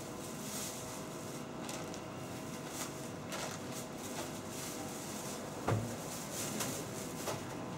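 A thin plastic shopping bag crinkling and rustling as a plastic cola bottle and packets of crisps are packed into it, with light knocks and one louder thump about three quarters of the way in, over a steady background hum.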